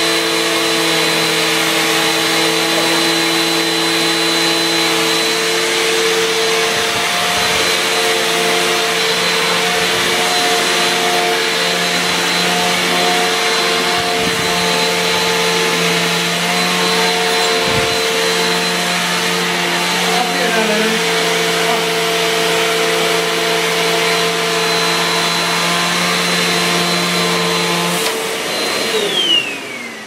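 Upright vacuum cleaner motor running with a steady hum and whine, then winding down with a falling pitch near the end.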